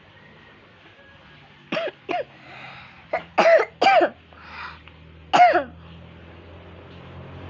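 A run of about six short, high-pitched vocal cries, each bending down in pitch, coming in a cluster over a few seconds, with the loudest near the middle and one more a little later.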